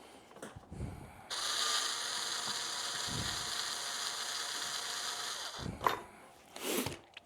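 Ratchet wrench clicking rapidly and steadily for about four seconds while working a rack bolt, followed by a couple of short knocks near the end.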